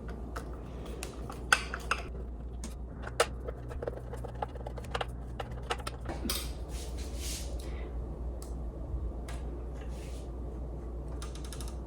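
Scattered small metallic clicks and taps, with a brief scraping rustle about six seconds in, from reassembling a KitchenAid stand mixer's metal housing: screws and screwdriver handled and the trim band fitted back on.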